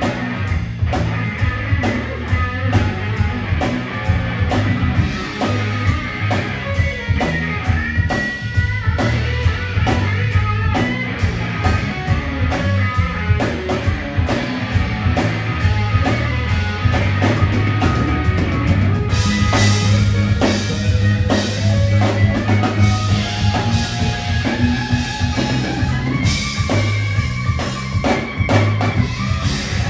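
Live blues-rock band playing an instrumental passage: Stratocaster-style electric guitar with bending notes over electric bass and a drum kit. The cymbals grow brighter about two-thirds of the way through.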